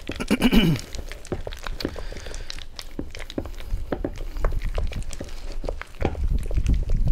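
Spatula stirring a thick cream cheese and smoked salmon spread in a glass bowl: irregular soft taps, scrapes and squelches against the glass. The sound grows louder and lower near the end.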